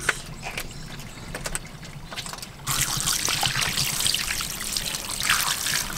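Water running from a hose over a whole trout held in the hands and splashing onto paving stones, a steady hiss that starts suddenly about two and a half seconds in, after a quieter stretch with a few faint clicks.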